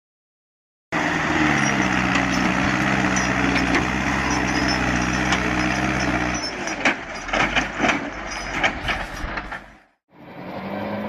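A motor engine running loudly and steadily, then a few seconds of irregular knocks and clatter before the sound cuts off.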